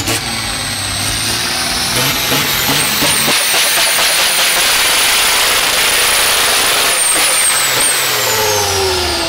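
Diesel truck engine revved hard and held, giving a loud steady rushing exhaust. Over it a thin high whistle climbs about two seconds in, wavers up and down, holds, then slides down near the end as the revs fall.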